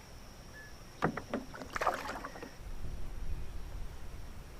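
A few sharp knocks and a short clatter from handling on a kayak, then a steady low rumble from about halfway in.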